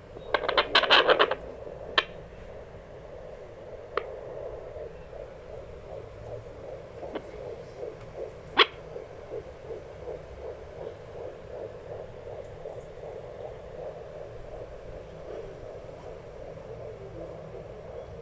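Fetal Doppler monitor's speaker playing a baby's heartbeat as a quick, steady rhythm of whooshing pulses. A burst of scratchy crackle from the probe being handled opens it, and a few sharp clicks follow.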